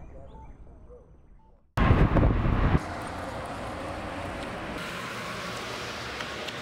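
Street traffic noise that cuts in abruptly about two seconds in, loudest for the first second, then a steady rush of passing vehicles and wind.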